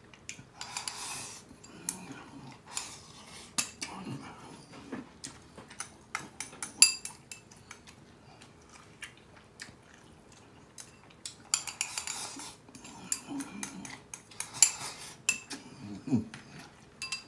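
A plastic spoon scraping and clicking against a disposable aluminium foil tray of fried rice. There are many scattered light clicks, and two longer scrapes, one about a second in and one about twelve seconds in.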